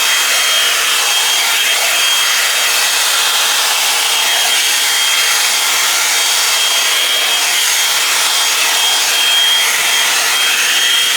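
Drybar Double Shot blow-dryer brush running on full power: a steady rush of air with a high steady motor whine, the air noise shifting as the brush is drawn through the hair.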